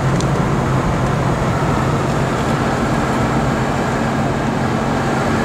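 Steady low hum of a car's engine and cabin noise heard from inside the vehicle, with no change in level.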